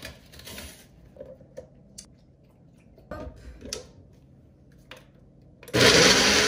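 A few light clicks and taps of things being handled, then near the end a countertop blender runs loudly for a little over a second, switching on and off abruptly, as it blends a smoothie.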